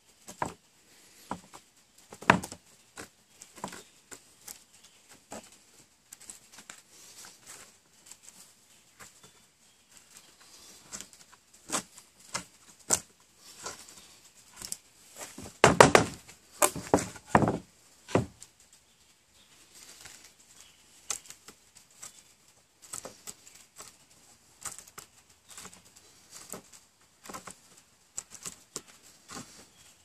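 Swiss Army knife awl twisted back and forth by hand in a soft pine board, scraping and clicking irregularly as it bores a through hole and begins to break through the far side. The scraping and knocking grow louder for a couple of seconds around the middle.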